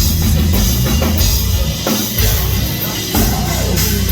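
Heavy metal band playing live at full volume, with a pounding kick drum and drum kit driving the song.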